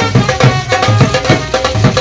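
Live band music: a dhol beats a steady folk rhythm under a trumpet and a low brass horn playing a melody.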